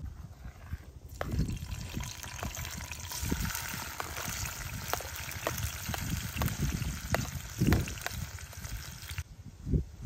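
Chopped vegetables sizzling and crackling as they hit hot oil in a small frying pan over a wood fire. The sizzle starts about a second in and cuts off suddenly near the end.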